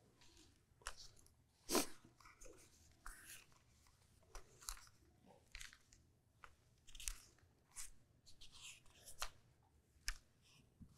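Faint, irregular crackles and clicks of handling noise close to the microphone, with one louder click about two seconds in.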